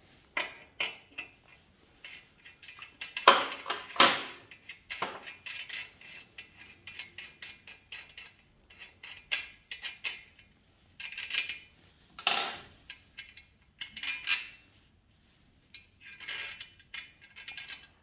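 Small metal bicycle parts clicking and clinking in irregular bursts as a mudguard stay, washer and nut are handled and fitted onto a bicycle's rear axle by hand. The loudest clinks come about three and four seconds in.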